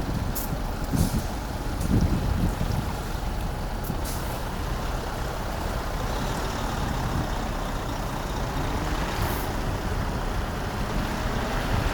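Steady low rumble with wind buffeting the microphone, and a few short high hisses.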